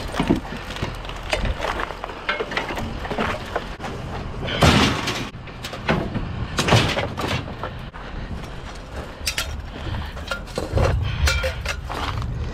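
Clanking and clattering of junk and scrap being handled and dropped, with repeated sharp knocks. There are louder crashes about five and seven seconds in, and another cluster of knocks near the end.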